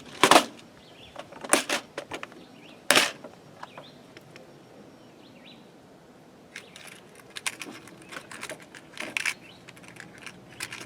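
Hands handling small parts and tools: a few sharp clicks and knocks in the first three seconds, then a run of small clicks and rattles from about six and a half seconds on. Birds chirp faintly in the background.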